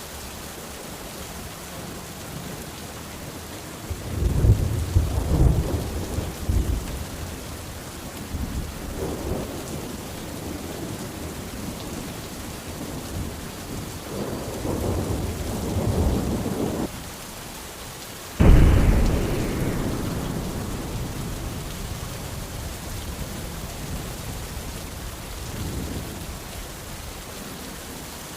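Steady rain with thunder: low rolling rumbles swell about four seconds in and again around the middle, one cutting off abruptly, then a sharp, loud thunderclap about two-thirds through that rumbles away over a few seconds.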